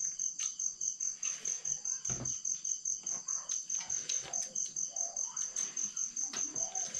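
Cricket chirping steadily in an even, fast pulse of about five chirps a second, with faint clinks of spoons on plates.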